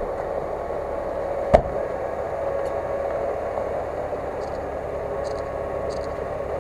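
A vehicle engine running steadily, with one sharp knock about a second and a half in.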